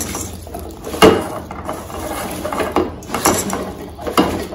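Cut raw banana pieces tossed and mixed by hand with masala in a stainless steel pan: irregular knocks and scrapes against the steel, the sharpest about a second in.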